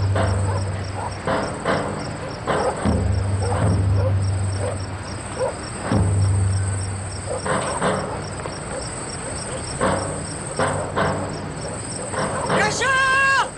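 Crickets chirping steadily in a night ambience, with irregular knocks or steps and a low hum that comes and goes. A short pitched sound near the end.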